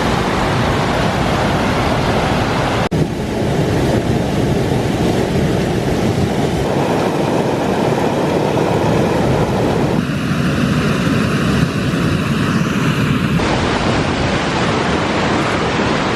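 Loud, steady rushing water from a waterfall close by, with no distinct pitch; its character changes abruptly three times.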